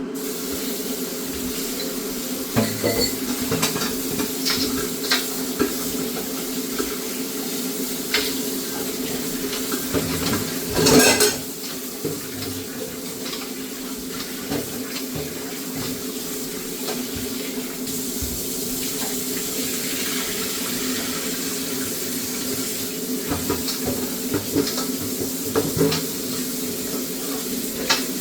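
Kitchen tap running into a sink as raw goat meat is washed, with scattered clinks of a pot or bowl and a louder clatter about 11 seconds in.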